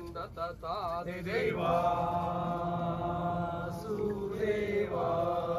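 Men chanting a Poorakkali song together: wavering sung notes at first, then two long held phrases with a short break between them.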